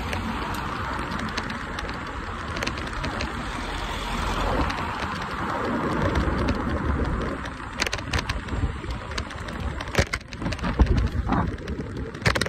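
Electric scooter ride heard from the rider: wind buffeting the microphone and a steady rush of road and traffic noise. From about eight seconds in come a series of sharp knocks and rattles as the scooter jolts over rough, cracked pavement.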